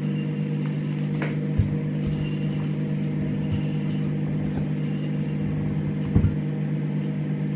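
A steady low hum of several tones held at an even level, with a soft knock about a second and a half in and another a little after six seconds.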